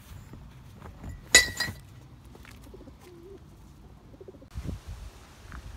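Glass bottle dropped into a glass recycling container, landing with one loud clink against the glass inside about a second and a half in and a smaller clink just after.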